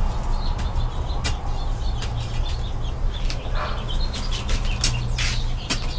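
A digging tool scraping and striking dry, gravelly soil in short, irregular strokes while a drainage trench is cut. Birds chirp faintly, and a steady low rumble runs underneath.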